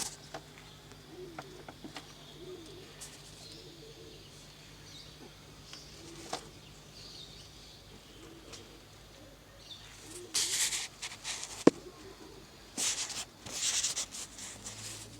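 Birds giving low, soft, wavering calls again and again, with two loud rustling bursts about ten and thirteen seconds in.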